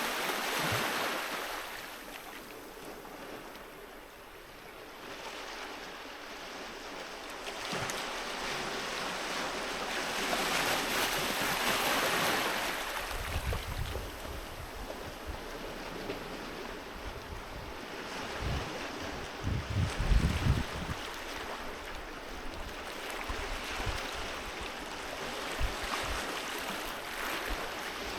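Sea waves breaking and washing up on a beach in slow swells, loudest about a third of the way in. In the second half, gusts of wind knock on the microphone with low thumps, the loudest just past the middle.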